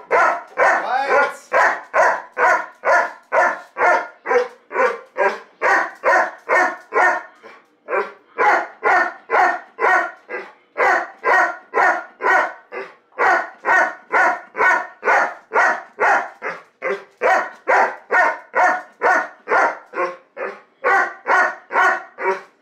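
Golden retriever barking over and over at a steady pace of about two barks a second, with a brief break about seven seconds in.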